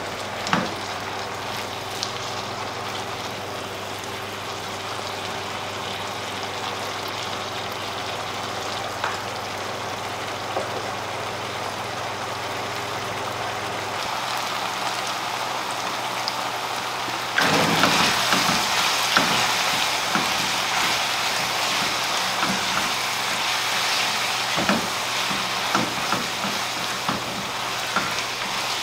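Meat-pie filling of minced beef and diced potatoes simmering and sizzling in a nonstick frying pan. About two-thirds of the way through the sizzle grows louder, with a wooden spatula scraping and clicking against the pan as it is stirred.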